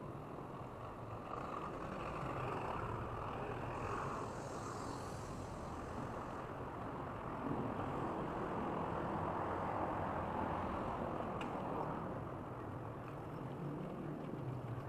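Steady road and traffic noise of a vehicle moving along a street.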